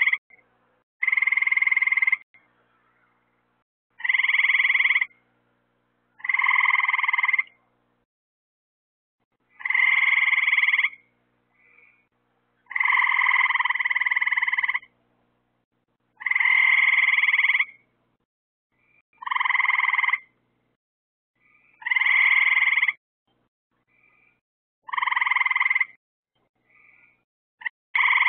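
A frog calling from the pond, giving a loud, even call about a second long over and over, every two to three seconds, with a few short faint chirps in between.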